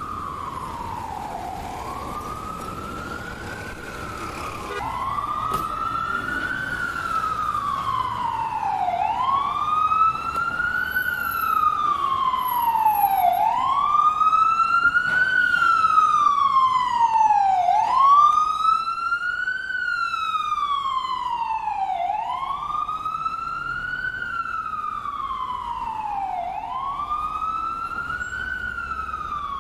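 Ambulance siren wailing, its pitch sweeping slowly up and then back down about once every four seconds. It grows louder toward the middle and then fades a little.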